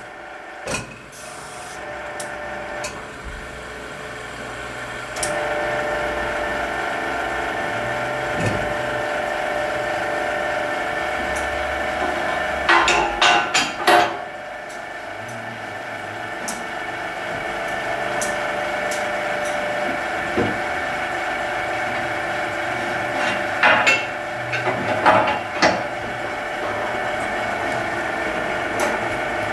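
A workshop machine hums steadily, its tone getting louder about five seconds in. Two short bursts of clattering knocks come about halfway through and again near the end.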